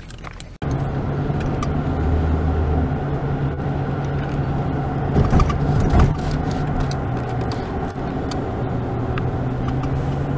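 Car interior noise while driving: a steady low engine and road drone that starts abruptly about half a second in, with a brief louder bump around the middle.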